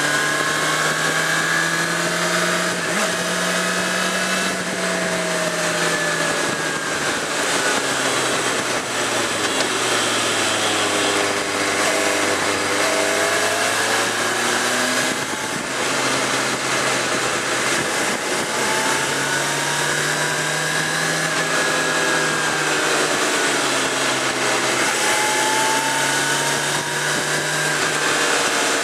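Suzuki GSX650F's inline-four engine running under way, heard from on board over steady wind rush. Its pitch falls as the bike slows about ten seconds in, then climbs again as it pulls away.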